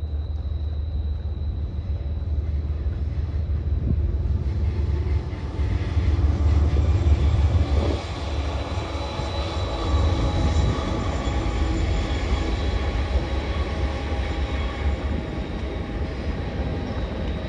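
Freight train passing with a steady deep rumble, building to its loudest about six to eight seconds in and then holding slightly lower.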